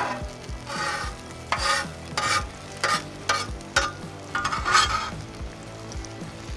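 Bacon and hash browns sizzling on a Blackstone flat-top griddle, with a series of short scraping strokes of a metal utensil on the griddle surface as the food is moved, the longest and loudest about two-thirds of the way through.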